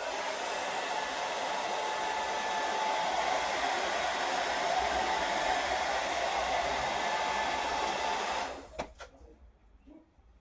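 Hand-held hair dryer blowing steadily, switched on at the start and switched off about eight and a half seconds in.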